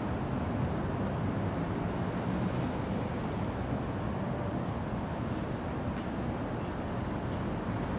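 Steady city background noise: a continuous hum of distant road traffic with no distinct events.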